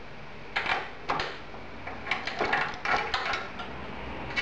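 Scattered light metallic clicks and clinks of a hand wrench working the motorcycle floorboard's mounting bolts, with a quick run of ticks about three seconds in.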